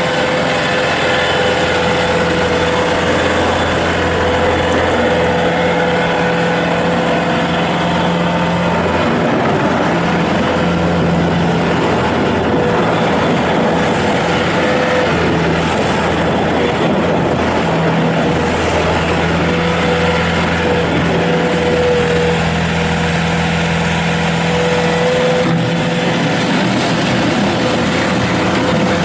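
Bobcat S220 skid steer loader's Kubota turbo diesel engine running steadily, with a steady whine over it.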